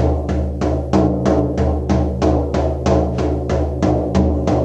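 A shamanic frame drum beaten in a fast, even rhythm of about three to four strokes a second, each stroke ringing with a deep resonance: the steady journeying beat of a drum meditation.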